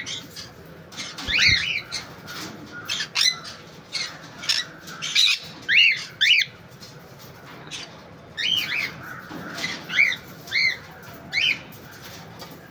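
Pet parrots squawking: short calls that rise and fall in pitch, about a dozen of them, coming every half second to a second with brief pauses between.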